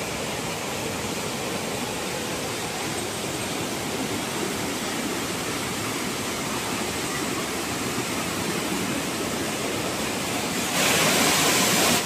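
Waterfall cascade rushing steadily over rock steps, a dense even roar of water. About a second before the end it suddenly grows louder and brighter.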